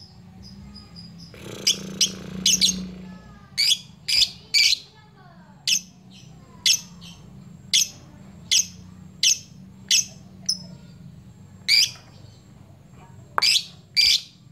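Lovebird giving sharp, high-pitched chirping calls about once a second, some in quick pairs, while flapping its wings ('ngepyak'): a challenge call meant to draw out rival lovebirds. About a second and a half in there is a rough rustling burst, likely wing flapping, lasting about a second and a half.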